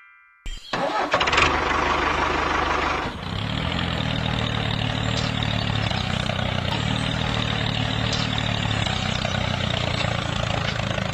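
An engine sound starts abruptly about half a second in, rough and noisy for a couple of seconds, then settles into steady running with a low hum.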